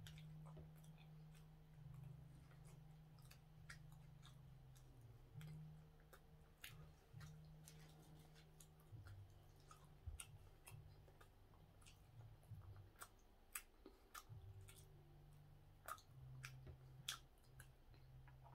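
Faint crinkles and clicks as a plastic film wrapper is peeled off a steamed bun (hoppang), then quiet chewing as it is eaten, over a low steady hum.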